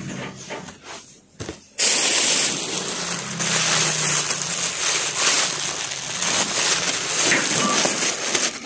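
Clear plastic bag crinkling and rustling as it is handled and pulled open, starting abruptly and loudly about two seconds in and going on as a dense crackle.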